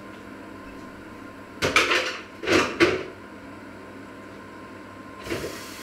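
Brief clatter of dishes and pots being handled at a kitchen sink: a few loud rattling bursts about two seconds in, and a smaller one near the end. A steady hiss sets in at that point.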